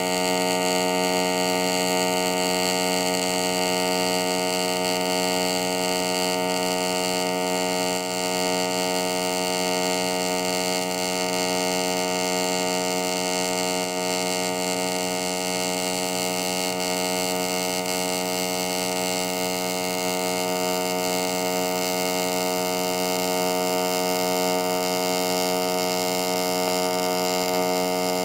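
Steady electrical mains hum with a stack of even overtones and a faint hiss above it, unchanging throughout.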